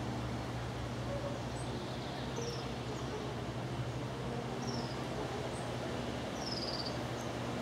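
Outdoor ambience in woodland: short high chirps that fall in pitch, three of them about two seconds apart, over a steady hiss and low hum.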